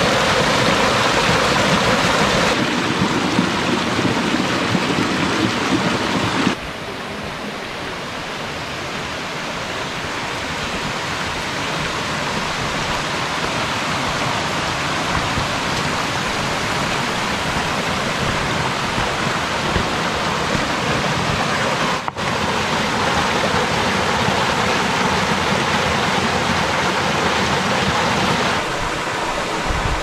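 Rushing water of a mountain valley stream: a steady, even noise of flowing water that changes level suddenly about six seconds in, dips briefly around 22 seconds, and shifts again near the end.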